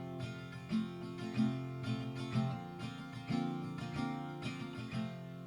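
Background music: acoustic guitar being picked and strummed.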